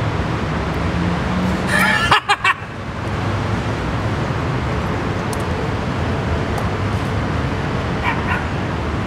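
Steady low rumble of street traffic, with a brief higher sound and a couple of clicks about two seconds in.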